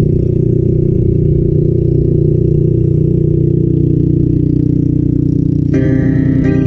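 Motorcycle engine running steadily while riding, with road and wind noise. Music comes in about a second before the end.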